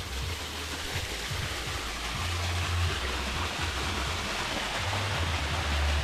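Waterfall's rushing water, a steady, even noise, with intermittent low rumbles underneath.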